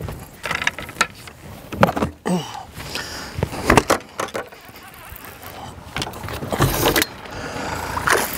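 Irregular knocks, clicks and rattles of fishing gear being handled in a boat: the angler grabbing his landing net while keeping a hooked bass on the rod.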